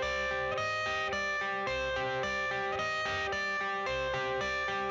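Background music: an electric guitar playing a repeating pattern of notes, with no vocals.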